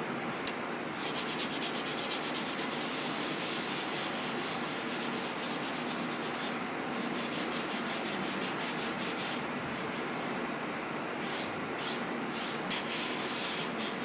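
A small knife scraping the surface of a dry clay mug in rapid, rhythmic strokes. This is trimming the unfired clay before it is sanded. The strokes come thick at first, break off and resume, then thin to a few separate scrapes near the end.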